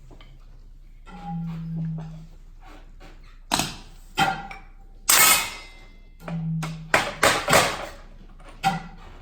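Sparse improvised music: a trombone holding two short low notes, with scattered percussion knocks and struck, ringing hits between them, including a longer clattering burst about five seconds in and a quick cluster of hits a couple of seconds later.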